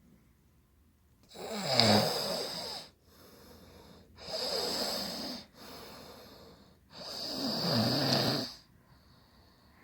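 Snoring in a slow rhythm: three long, rasping snores a little under three seconds apart, the first the loudest, with softer breaths out between them.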